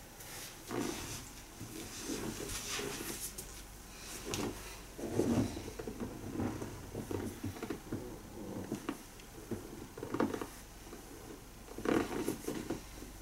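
Rustling of towels and cloth and shuffling on a padded treatment table as a client's leg is bent and stretched during a massage. The scuffs and bumps come unevenly, loudest about five seconds in and near the end.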